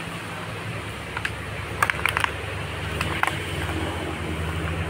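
A motor running steadily in the background as a low, even hum. A few short crackles about two seconds in and again just after three seconds, fitting footsteps through grass and dry leaves.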